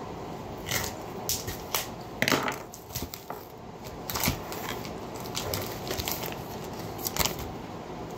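Plastic packaging of a raw whole bird crinkling and crackling in irregular bursts as it is opened and pulled off by hand.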